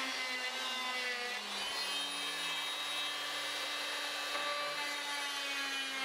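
Corded electric saw cutting through plywood, its motor giving a steady whine whose pitch sags slightly in the first couple of seconds as it works into the cut.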